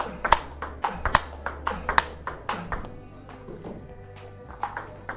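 Table tennis rally: a celluloid-type ball clicking sharply off the paddles and bouncing on the table in quick succession, about three hits a second, with a short lull past the middle before the hits start again near the end.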